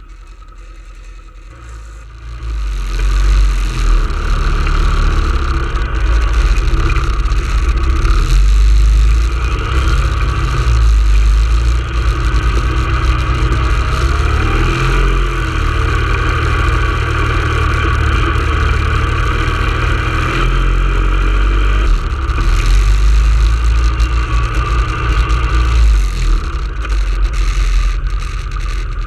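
ATV engine running as the four-wheeler is ridden, with a steady low rumble that gets louder about two seconds in and holds.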